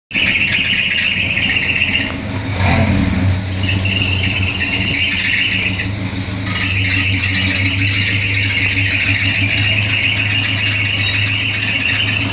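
Chevrolet Opala's engine drive belt squealing loudly and continuously over the steady running engine, dropping out briefly twice: the belt is slipping and due for replacement.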